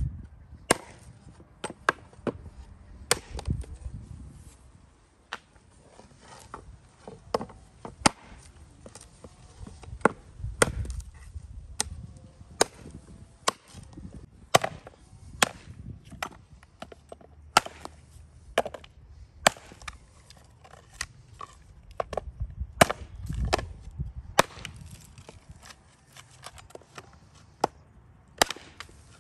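Knife chopping on a cutting board: a run of sharp, irregular knocks, about one or two a second.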